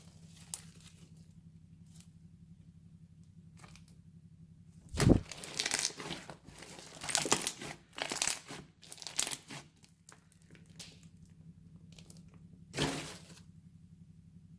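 Crunchy slime being squeezed and pressed by hand, crackling and crunching in short bursts: a sharp press about five seconds in, several crunchy squeezes over the next few seconds, and one more near the end.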